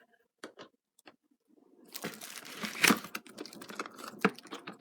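Packaging being opened by hand: a few light clicks, then about two seconds in a stretch of crinkling and rustling with sharp clicks as a model train car is unwrapped from its box.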